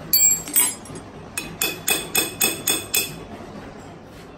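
Light metal-on-metal taps with a ringing tone on the aluminium cylinder head clamped on the milling machine table: a couple near the start, then a quick run of about seven at roughly four a second, as the head is set on the table before being skimmed flat.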